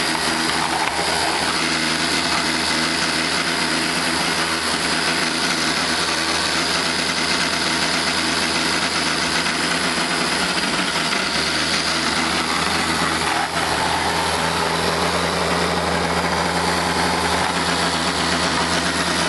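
Hamilton Beach Bebe baby food maker's electric motor running steadily with its slicing blade spinning, then switching off right at the end. Little sweet potato is going through, since the chunks are too big for its small feed chute.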